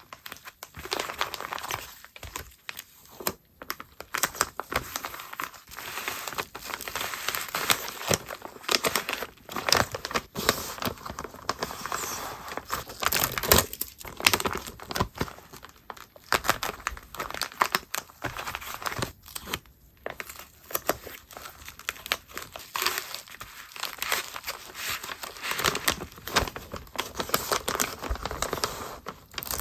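Plastic packaging crinkling and rustling continuously as it is handled, with irregular sharper crackles and some tearing.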